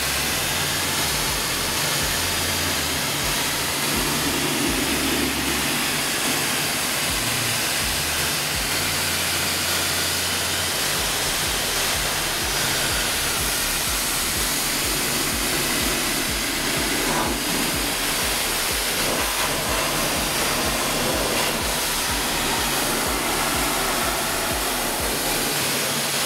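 Steady hiss of a water jet from a spray wand hitting a car's felt wheel-arch liner: a plain water rinse with no cleaner applied.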